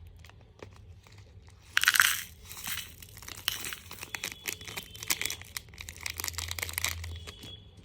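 Packaging holding menthol crystals crinkling and crackling as it is handled, with a loud crackle about two seconds in and many small crackles after it.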